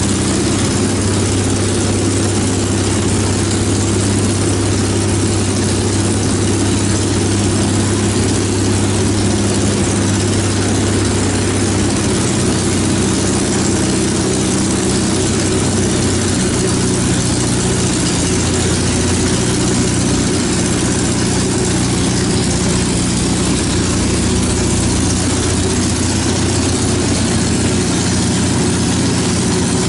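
Open-wheel race car engine idling steadily, its speed shifting slightly a couple of times.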